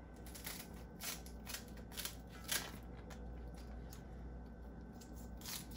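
Kitchen scissors snipping through bok choy leaves, a quick run of crisp cuts in the first half and a few more near the end.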